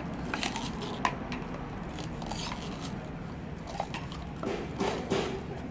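Martinelli's apple-shaped plastic juice bottle being bitten, its walls crunching and crackling like a bite into a real apple. There is a series of short crunches, with a denser, louder run of them near the end.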